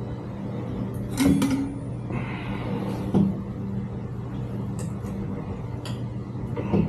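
Metal clanks and knocks from bicycle parts and tools being handled during assembly: a loud clank with a short ring about a second in, another knock about three seconds in, and lighter taps later, over a steady low hum.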